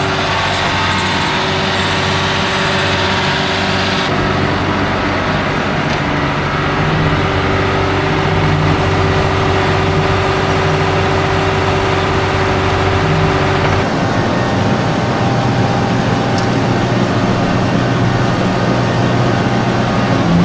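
Heavy diesel engine of a farm tractor running steadily at working speed, with a steady whine over the engine drone. The sound shifts abruptly twice, about four seconds in and again about fourteen seconds in.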